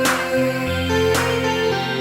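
Background music: held synth-like notes over a bass line, with a regular beat struck about once a second and some plucked guitar.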